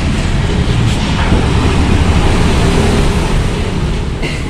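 Steel folding gate rolling along its curved steel floor track, the wheels rumbling steadily as the panels are pushed shut, with a knock about a second in and another near the end.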